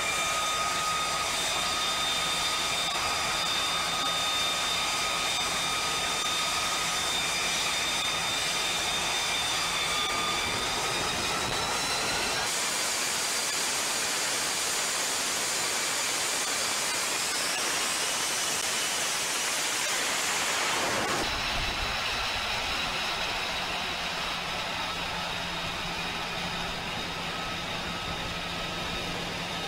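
F-35B jet engine running on the deck with a steady high whine over a rushing roar. The whine rises in pitch twice, about ten and about seventeen seconds in, as the engine spools up for launch. The sound changes abruptly twice along the way.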